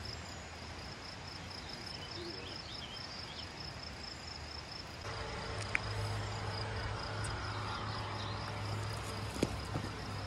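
Insects trilling steadily in a fast, even pulse, high in pitch. Two short sharp knocks, about six seconds in and again near the end.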